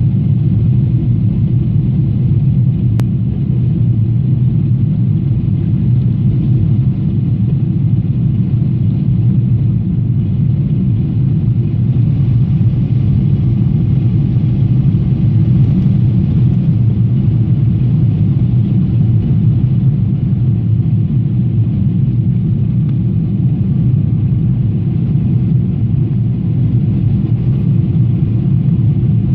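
Steady low rumble inside the cabin of a Boeing 777-300ER in flight on approach: the drone of its GE90-115B turbofans and the rush of air over the fuselage, heard from a window seat, unchanging throughout.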